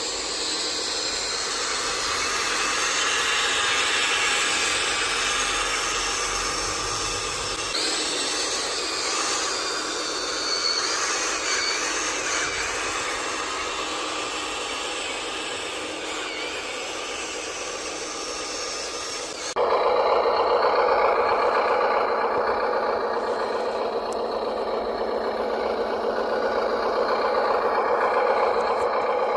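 Small electric motors and gearboxes of radio-controlled construction models running with a wavering whine and grinding, plus a steady hiss. About two-thirds through it cuts abruptly to a different, louder and steadier motor whine.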